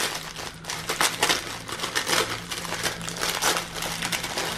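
A small striped paper bag crinkling and rustling in the hands as it is opened and rummaged through, in irregular crackly bursts.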